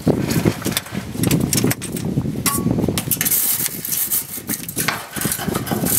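Wire brush scrubbing the rusted underside of a pickup's gas tank, a rapid uneven run of scraping strokes on metal, cleaning around a rubbed-through leak hole before an epoxy patch.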